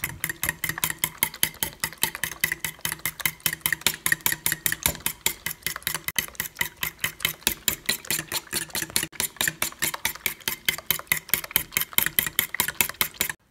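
A fork beating eggs and milk in an enamelled metal bowl: fast, even clinks of the tines against the bowl, about six a second, that stop suddenly at the end.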